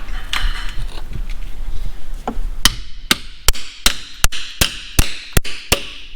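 Hammer blows, about nine sharp strikes at roughly two and a half a second from a little under halfway in, driving packed bread into the crankshaft's pilot bearing bore. The pressure this builds pushes the stuck pilot bearing out.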